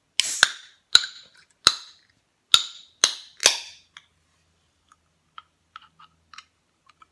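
Fingers tapping and flicking the top and tab of an aluminium drink can: six sharp metallic clicks, each with a short ring, about every half second, then a few faint ticks.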